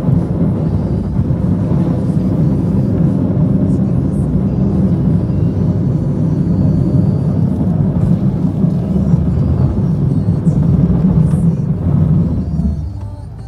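Plow truck's engine running under load while its front blade pushes snow, a steady heavy rumble heard from inside the cab. The noise drops away sharply near the end as the truck stops at the snow pile.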